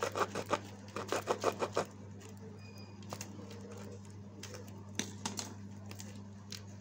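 Crackling clicks of a knife cutting a plastic sheet and brushing the polystyrene (thermocol) balls beneath. There are two quick flurries in the first two seconds, then scattered single clicks over a steady low hum.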